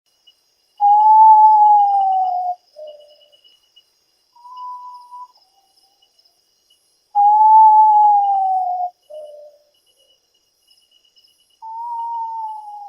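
Potoo calling: a long, mournful whistle that slides slightly down in pitch for nearly two seconds, then a short lower note. The call comes three times, about every five seconds, with a softer higher note between the first two. Faint insects trill steadily behind.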